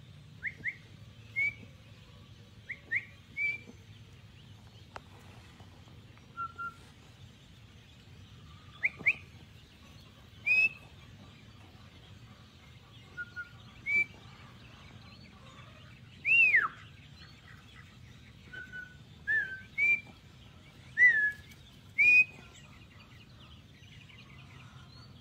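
Ducklings peeping: short, high single peeps, some rising and some falling, scattered every second or two, with one longer falling peep about two-thirds through.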